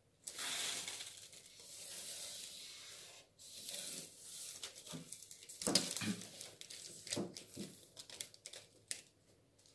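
Felt-tip marker scraping along paper in a long stroke drawn against a ruler, then a shorter stroke, followed by paper rustling and light knocks as a plastic ruler is shifted and set down on the pattern paper.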